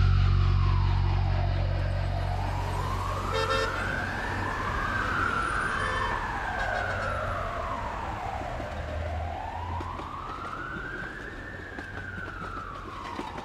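Emergency-vehicle sirens wailing, slow rising-and-falling sweeps of several seconds each, with a second wail overlapping the first in the middle. A low steady drone fades away underneath.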